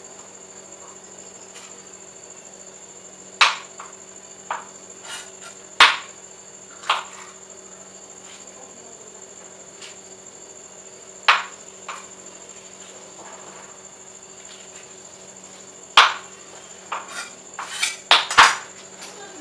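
Kitchen knife chopping green bell pepper on a wooden cutting board: single sharp knocks of the blade on the board every few seconds, then a quicker run of chops near the end. A steady high-pitched whine runs underneath.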